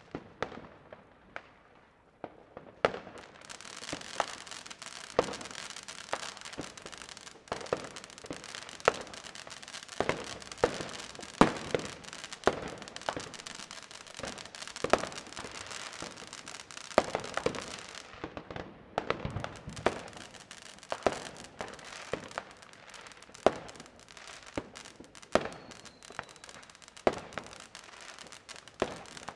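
New Year's fireworks and firecrackers going off: irregular sharp bangs, roughly one a second, over a steady crackle from about three seconds in, which thins briefly a little past the middle.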